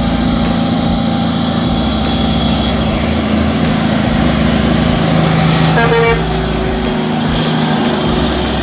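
Diesel engine of a Kenworth tractor-tanker truck running steadily as it comes up and passes close by, with a short horn toot about six seconds in.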